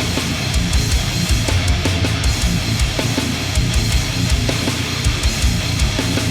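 Loud, dense heavy music: distorted electric guitars over a drum kit with rapid, steady kick-drum hits.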